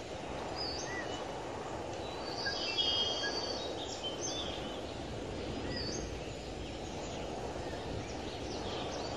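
Birds chirping and calling over a steady low background noise, with a louder run of calls about two and a half seconds in.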